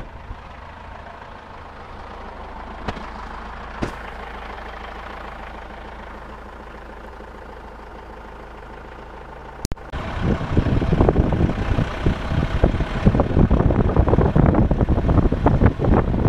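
A motor vehicle's engine running with a steady low hum and two faint clicks. About ten seconds in, the sound cuts abruptly to loud, rough wind buffeting on the microphone, held out of a moving vehicle's window.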